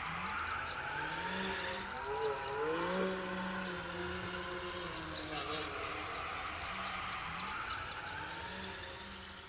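Distant car engine revving up and down, with many short high chirps over it; the sound fades out near the end.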